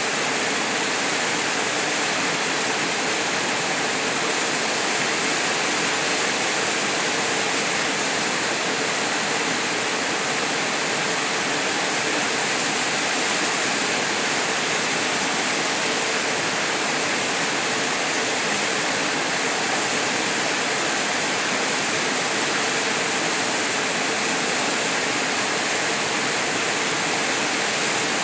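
Small waterfall pouring into a plunge pool: a steady, loud rush of falling water.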